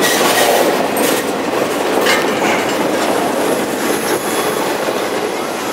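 Freight train hoppers and boxcars rolling past close by: a steady heavy rumble of steel wheels on rail, with a sharp clack about every two seconds as wheels cross rail joints. It eases off a little near the end as the last cars pass.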